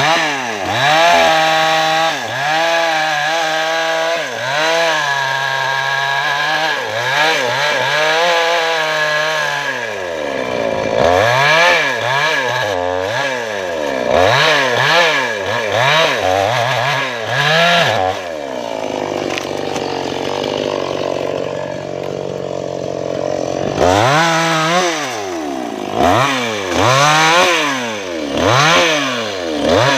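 Maestro Plus CS6500L two-stroke gasoline chainsaw cutting into a felled teak trunk, its engine revving up and dropping back over and over, about once a second as the throttle is worked. A little past the middle it holds a steadier pitch for a few seconds before the revving resumes.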